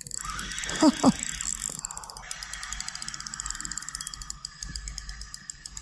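Spinning fishing reel being cranked to retrieve the line and the hooked catch, its gears giving a fast, even clicking.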